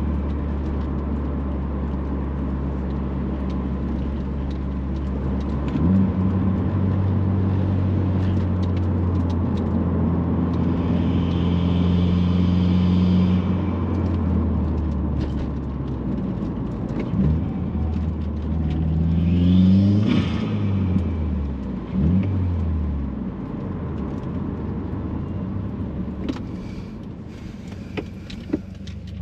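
2018 Subaru WRX's turbocharged 2.0-litre flat-four on the move, fitted with a cast aluminium turbo inlet. The engine runs steadily, then pulls harder about six seconds in with an airy turbo hiss over the engine note. Around the middle the revs rise and fall through gear changes, with a short rush of air near the peak, before it settles to a quieter cruise.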